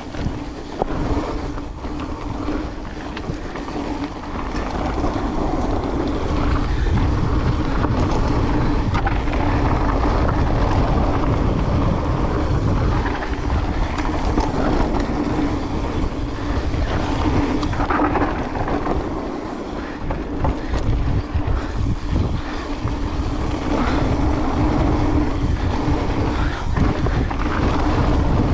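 Wind rushing over a moving camera's microphone, over a continuous rumble and rattle of riding over rough trail ground. It gets somewhat louder a few seconds in.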